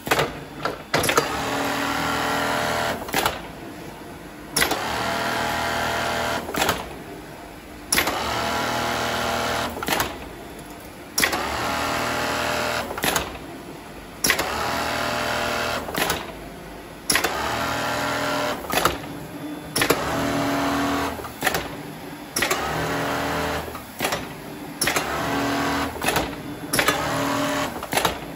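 Strobel KA-ED automatic pad-stitching machine sewing a jacket's interfacing with its blind stitch. It runs in repeated bursts of a second or two, with sharp clicks between the bursts.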